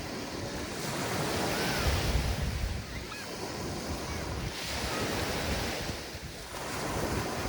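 Mediterranean surf breaking and washing up on a sandy beach, the sound swelling and fading with each wave, three times. A low rumble of wind on the microphone lies under it.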